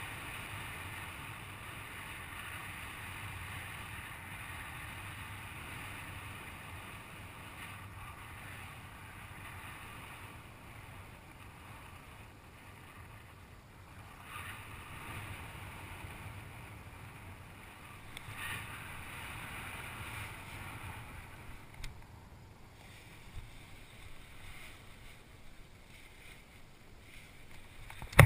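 Wind rushing over the microphone of a paraglider's harness-mounted camera in flight, a steady rush of air. It thins out in the last few seconds as the glider comes in to land, with a few small knocks.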